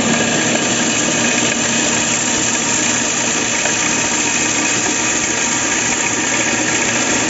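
Homemade electric corn sheller running, its motor and threshing drum making a steady, dense mechanical noise with a low hum.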